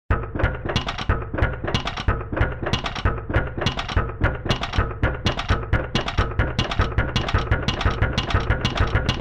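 Music with a fast, steady beat of sharp percussive hits over a bass line, starting abruptly out of silence.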